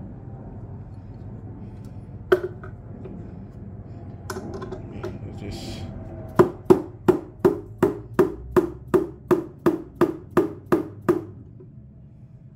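A 45-ounce dead blow hammer lightly tapping a quarter-inch tool set against a brass ring in a throttle-body adapter plate, to drive the ring out. Two single taps, then an even run of about fourteen taps, roughly three a second, each with a short ring.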